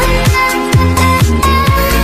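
Background electronic dance music with a steady four-on-the-floor kick drum, about two beats a second, over bass and synth melody.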